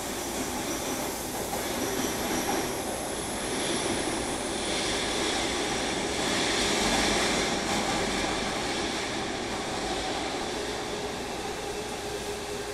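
Running sound of a JR Kyushu 305 series subway train heard inside a motor car: wheels on the rails with the Toshiba permanent-magnet traction motors and their inverter, over air-conditioning noise. It swells to its loudest about seven seconds in, then eases off.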